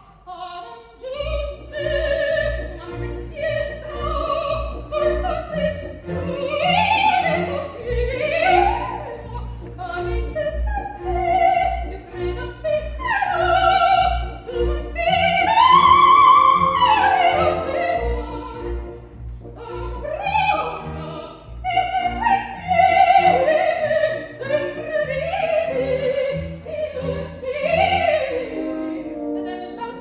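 Coloratura soprano singing an opera aria with orchestra, in quick runs that climb and fall and in held high notes. The highest held note comes about halfway through.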